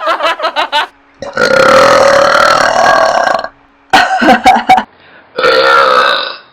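A woman belching loudly several times: choppy, broken-up burps between two long drawn-out ones, the longest about two seconds.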